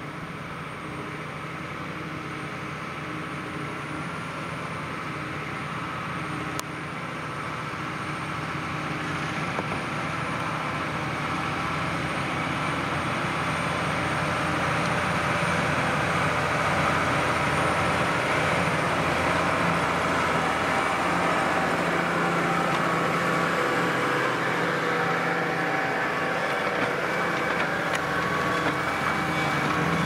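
New Holland T7.245 tractor's six-cylinder diesel engine running steadily under load while pulling a reversible plough through the soil. It grows louder over the first half, then holds.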